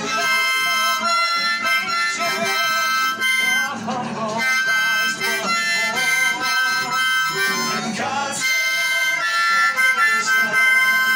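Harmonica played close up into a microphone: an instrumental break of held notes and chords that change every second or so.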